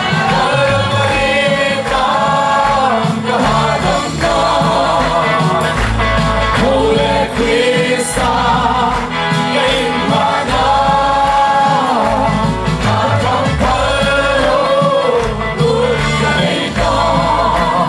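Gospel song sung by voices over a band, with bass and a steady drum beat.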